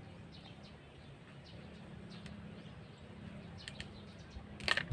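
Faint bird chirps in the background over a low steady hum, then a short clatter of plastic parts being handled near the end.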